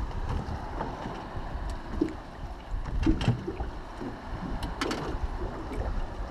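Wind buffeting the microphone over choppy water slapping at a small boat, with a few short knocks, the clearest about three and five seconds in, as a fish is reeled up and swung aboard.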